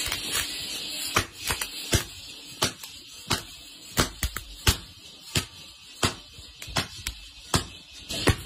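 Sharp knocks, irregular, about two a second, from a wooden mallet striking hot roasted fox nut (makhana) seeds on a hard floor. The blows crack the shells so the kernels pop out.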